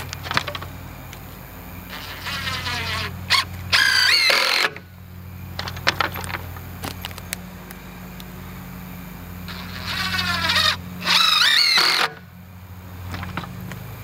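Sawmill engine running steadily at idle. Twice, a loud motor whine rises in pitch over a couple of seconds, holds briefly and cuts off suddenly.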